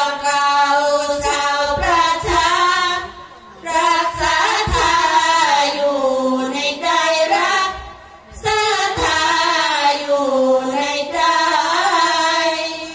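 A group of Thai women singing sorapanya, melodic Buddhist devotional verse, together without instruments. They sing long, drawn-out phrases with gliding pitch and take short breaks for breath about every four seconds.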